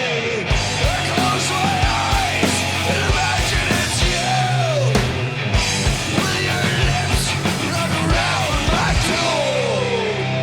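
A live punk rock band playing loud, with steady drum hits, a sustained bass line and falling pitch glides from guitar or voice over it.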